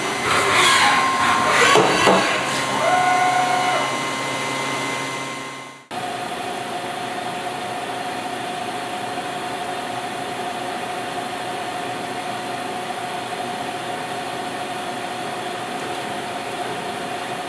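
CNC milling machine cutting a metal workpiece: spindle whine with the rattle and ticking of chips. About six seconds in it breaks off suddenly and gives way to a steady machine hum with a faint held tone.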